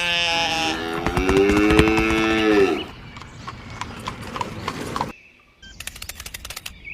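A cow mooing: one long call in the first three seconds, followed by quieter scattered clicks.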